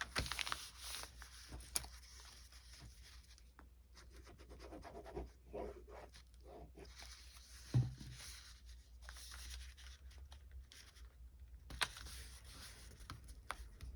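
Faint handling of paper and card: light scratches, rubs and small taps as pieces are slipped into a small paper notebook, with one soft low bump about eight seconds in.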